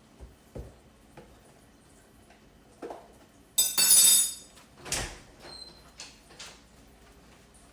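Kitchen handling noise while making pancakes: scattered light clicks and knocks of utensils and dishes, with a louder scraping rattle lasting under a second about three and a half seconds in.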